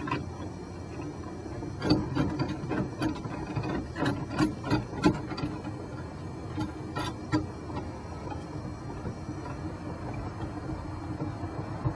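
A metal tool knocking and clicking against the steering column of a 1981 Pontiac Firebird as parts are worked back onto it: a run of sharp clicks and knocks about two seconds in, a few more around seven seconds, over a steady low hum.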